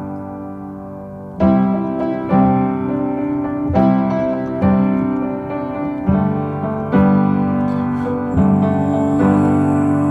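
Background music: piano chords struck about once a second, each ringing and fading, in an instrumental break of a pop song.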